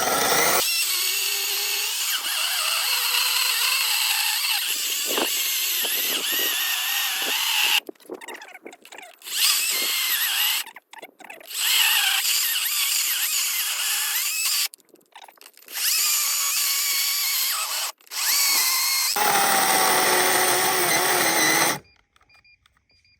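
Cordless electric chainsaw cutting into a tree stump, running in several bursts with short pauses as the trigger is released and pulled again. It stops for good about 22 seconds in, when its battery goes flat.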